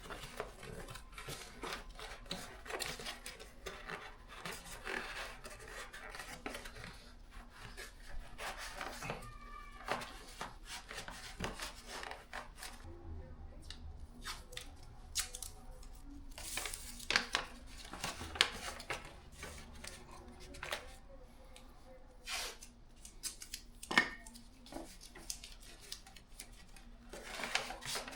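Aerosol can of high-temperature silicone spray being sprayed onto exhaust header wrap in short hissing bursts, with clicks and knocks from handling the can and bike parts.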